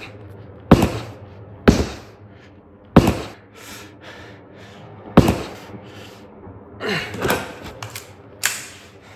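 A series of about six loud thumps, irregularly spaced roughly a second apart, each hitting sharply and fading quickly.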